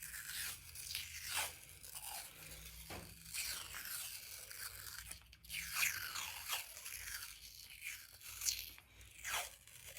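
Hockey tape peeling off the roll as it is wrapped around a stick's grip, a string of short, uneven rasping rips.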